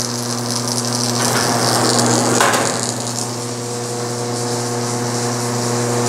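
BWS-50 SAR electric wire stripping machine running with a steady hum while an insulated 12-gauge copper strand from 12-2 Romex feeds through its round port and the insulation is cut away. A rougher scraping noise rises over the hum about a second in and dies down about three seconds in.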